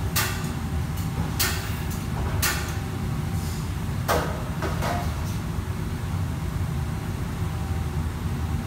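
Steady low rumble of a commercial wok station, with a run of about seven metal clanks and scrapes of utensils on the woks in the first five seconds, a couple of them ringing briefly; the clanking stops about five seconds in and the rumble carries on.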